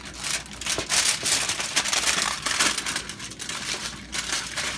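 Sheet of Reynolds Wrap aluminum foil crinkling and crackling as it is handled and pressed over a pizza pan.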